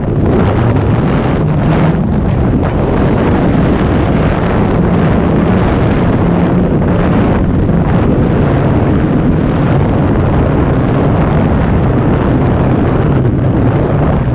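Loud, steady roar of freefall wind buffeting the camera's microphone during a tandem skydive.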